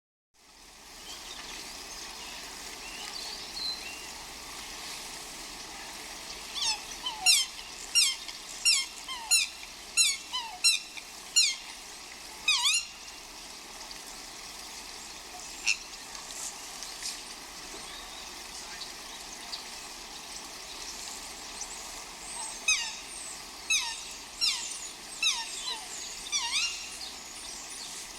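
A brook running steadily, with a bird giving two runs of short, high call notes that each sweep sharply downward, about two notes a second: the first run about seven seconds in, the second near the end.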